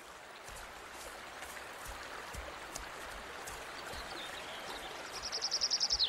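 Steady rush of a fast-flowing river. About five seconds in, a pipit starts singing a rapid trill of high, evenly repeated notes.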